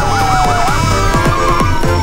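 A siren yelping rapidly up and down, breaking into a falling glide about half a second in, over music with a steady beat.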